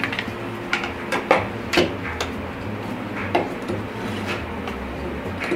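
A handheld knife sharpener and a chef's knife being handled on a cutting board: a string of separate clicks and knocks as the sharpener is set down and the blade fitted to it, loudest between one and two seconds in.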